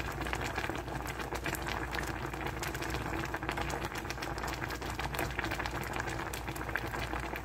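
Pot of shrimp and vegetable soup boiling: steady bubbling with a dense crackle of small pops.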